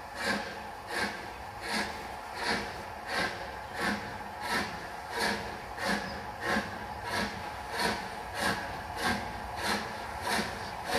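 LMS Fowler 4F 0-6-0 steam locomotive with two inside cylinders pulling away from a standstill, its chimney exhaust chuffing evenly at about one and a half beats a second and slowly quickening as it gathers speed. A sure-footed start with no wheel slip.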